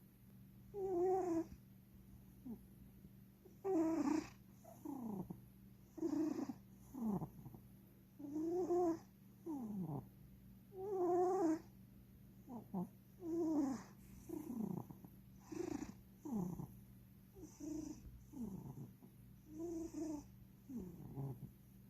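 Domestic cat snoring loudly in its sleep: rhythmic snores about once a second, some held on one pitch and others sliding down in pitch.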